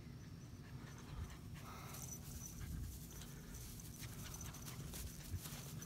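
Faint panting of a dog.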